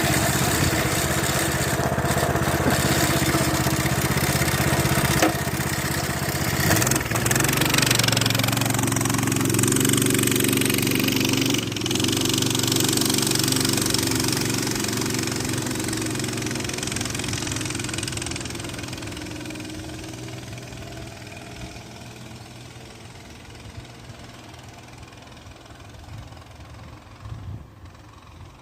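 Axis M200 mini bike's small single-cylinder engine running, its pitch shifting upward about seven seconds in. The sound then fades steadily over the last ten seconds.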